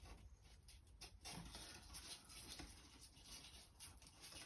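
Near silence with faint scattered rustling and light taps from hands measuring a hook-and-loop strip against an aluminium T-channel sanding block.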